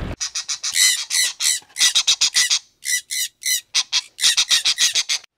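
A bird giving a rapid series of short, harsh squawking calls, with a couple of brief pauses.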